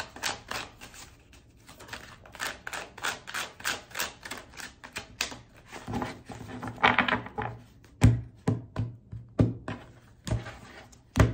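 Tarot cards being shuffled by hand: a fast run of sharp card flicks, followed by several dull thuds as the deck or cards are knocked and laid down on the table.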